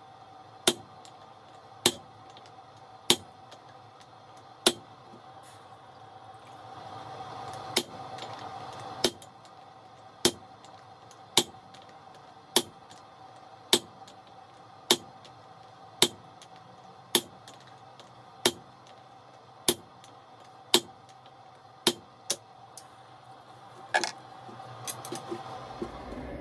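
Hand hammer striking hot steel on an anvil while forging a hammer head: sharp metallic blows about once a second, with a short pause a few seconds in.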